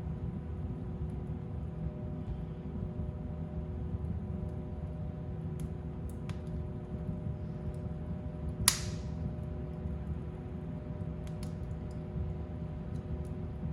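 Fire burning in a fireplace: a steady low noise of flames with a few faint scattered crackles, and one sharp, loud pop about two-thirds of the way through.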